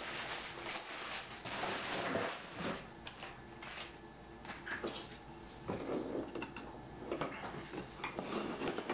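Brown wrapping paper rustling and crinkling as a parcel is torn open, for about the first three seconds, followed by scattered knocks and clicks of wooden rifle handguards being handled and set down on a tabletop.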